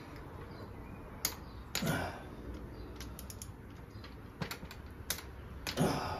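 Scattered metallic clicks and taps of hand tools against the Honda C70 engine's cases as it is worked on. There are about half a dozen separate clicks spread irregularly, a few of them coming in quick pairs.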